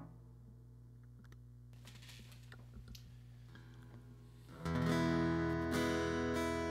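A quiet pause with a few faint clicks, then an acoustic guitar starts strumming full chords about four and a half seconds in.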